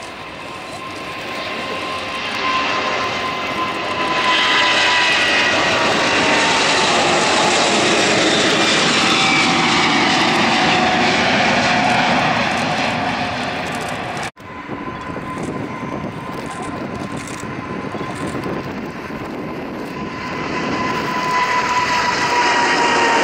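Turbofan engines of a twin-engine widebody jet airliner at takeoff power. The noise builds over the first few seconds and stays loud, with a whine that slowly falls in pitch as the jet passes. About two-thirds of the way through it cuts off suddenly to a second airliner taking off, which grows louder again near the end.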